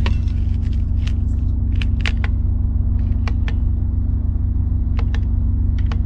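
Button clicks on a diesel heater's wall-mounted control panel, a string of short sharp clicks as it is set up. Under them runs a loud, steady low rumble.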